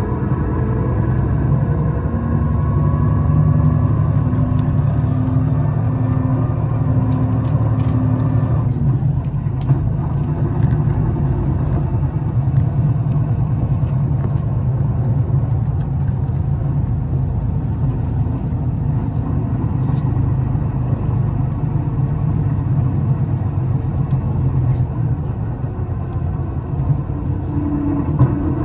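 Isuzu Erga city bus heard from inside while under way, its engine and drivetrain running with a steady low drone. Near the start there are whining tones that rise and then hold steady; they cut off about eight seconds in, and the bus runs on at an even pace. This bus is singled out for an abnormal noise.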